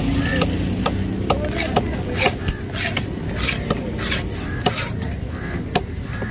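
A heavy broad-bladed fish knife chopping fish into chunks on a wooden block: sharp chops at irregular intervals, a few a second, with short scrapes of the blade. A steady low rumble runs underneath.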